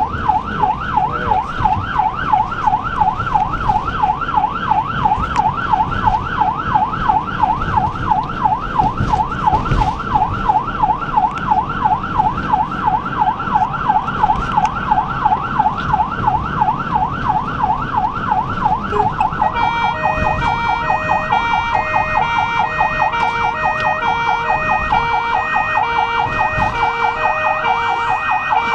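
Ambulance siren on an emergency run, wailing up and down quickly, about four sweeps a second. About two-thirds of the way through it switches to a stepped tone that jumps between fixed pitches. Road and engine noise from the moving ambulance run underneath.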